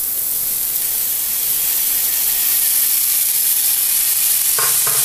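Hot oil sizzling steadily in a frying pan as a heap of shredded raw ash gourd is tipped in over fried potato pieces, the wet vegetable hissing in the oil.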